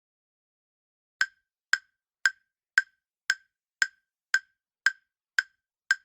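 Quiz countdown-timer sound effect: ten short, sharp ticks at an even two a second, starting a little over a second in.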